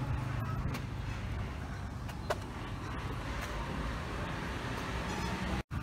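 Outdoor ambient noise with a steady low rumble, with one sharp click a little after two seconds in. The sound cuts out for an instant near the end.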